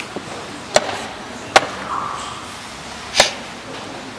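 Wooden chess pieces set down hard on a wooden board and the chess clock's buttons struck in quick blitz play: four sharp clacks, about a second apart with a longer gap before the last.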